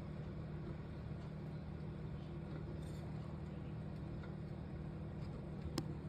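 A steady low hum, with one short sharp click near the end.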